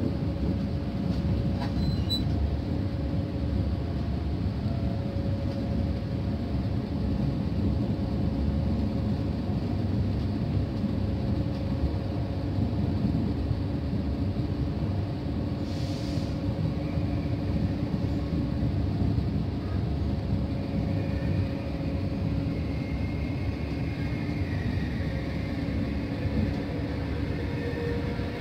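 Steady low rumble of a passenger train running, heard from inside the carriage, with a faint steady hum through it. There is a brief hiss about halfway through, and a faint high wavering squeal in the last several seconds as the train comes up to a station platform.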